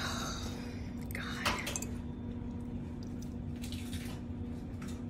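A glass bowl of tea being handled, with one sharp clink about a second and a half in, then faint sips as it is drunk from, over a steady low hum.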